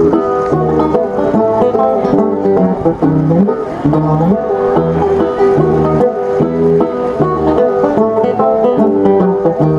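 Banjo ensemble playing a classic-banjo piece together, quick plucked melody notes over a regular low bass part.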